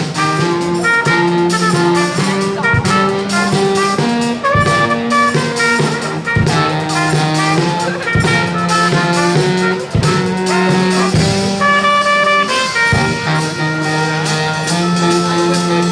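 Brass band playing a jazzy tune: horns carry the melody and harmony over a low brass bass line, with a drum kit keeping the beat.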